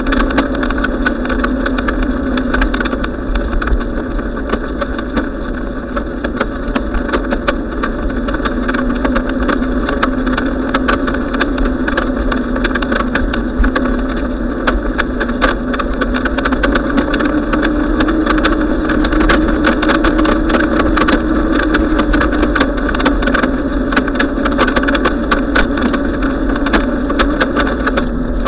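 Bicycle rolling along a paved trail: a steady tyre and drivetrain hum that rises slightly in pitch about two-thirds of the way through, over a constant rattle of small clicks and knocks.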